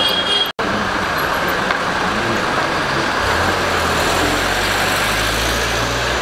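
Steady city street traffic noise, with a minibus engine humming as it drives past close by from about three seconds in. The sound cuts out for an instant about half a second in.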